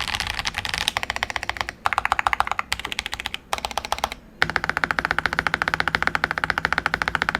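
Fast typing on an MK870 mechanical keyboard with Akko Jelly Purple linear switches and PBT keycaps, its case dampened with foam, silicone and polyfill. It comes in short bursts of keystrokes with brief pauses, then a long, fast, unbroken run from a little past halfway.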